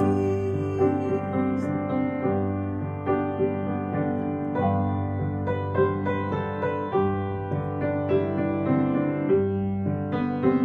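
Piano accompaniment playing the instrumental interlude of a hymn between sung verses: held chords over a sustained bass, changing every two seconds or so.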